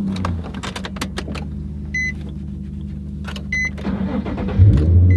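Car engine idling with a steady low hum, scattered clicks, and a short high electronic chime repeating about every second and a half, like a car's warning chime. The engine gets louder near the end.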